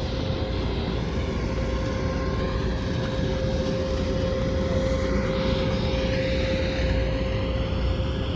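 A steady mechanical drone with one constant humming tone running through it, and faint gliding tones appearing high up after about five seconds.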